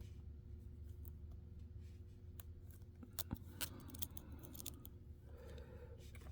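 Faint, scattered metallic clicks and scrapes of a lock pick and tension wrench working the pin stack of an ABUS E60 padlock, with a few louder clicks about three to four seconds in.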